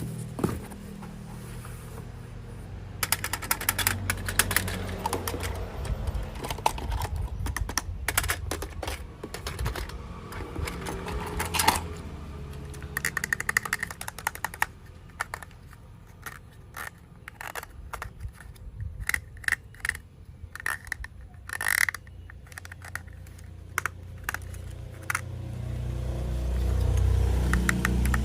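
Irregular clicking, tapping and light rattling of plastic toy train parts and track pieces being handled and fitted together, with a low steady hum at the start and near the end.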